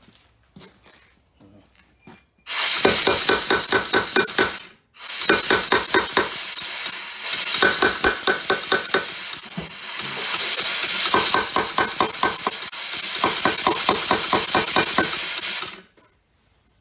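Bulldog air-powered power hammer pounding a hot half-inch square steel bar in a fast run of blows with a hiss of air. The blows start about two and a half seconds in, break off briefly near five seconds, then run on until just before the end.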